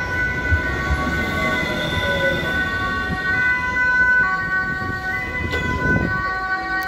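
Alstom Citadis tram pulling in at a stop, its traction electrics giving off a steady high whine of several held tones that switch on and off. A fainter lower tone falls as the tram slows.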